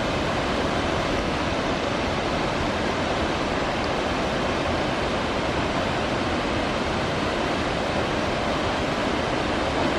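Mist Falls, a large waterfall pouring down granite slabs, rushing steadily.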